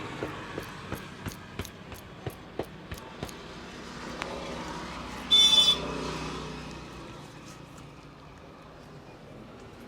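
Hand taps of a barber's head massage, about three a second, for the first three seconds. Then road traffic passes and a short vehicle horn beep, the loudest sound, comes about five seconds in.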